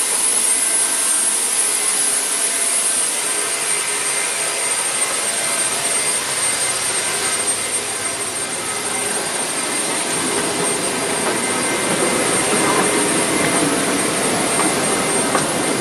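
Rear-mounted Pratt & Whitney JT8D turbofans of a McDonnell Douglas DC-9-32 running steadily, heard from inside the cabin: a high steady whine over a rushing roar. It grows slightly heavier in the last few seconds.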